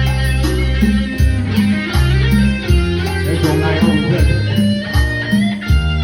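Instrumental intro of a Thai song: electric guitar melody over bass guitar and a steady drum beat.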